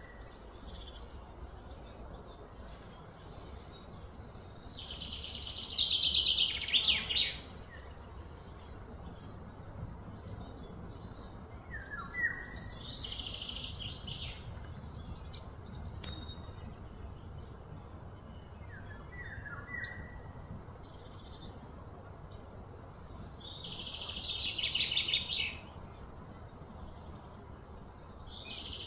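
Outdoor ambience with birds calling: short chirps every several seconds, and twice a louder burst of rapid chirping lasting about two seconds, about five seconds in and again near the end.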